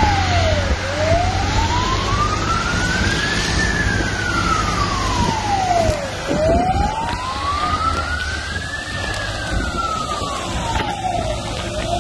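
Fire engine siren wailing slowly, its pitch rising and falling over about five seconds per cycle, twice in full, over a steady low rumble.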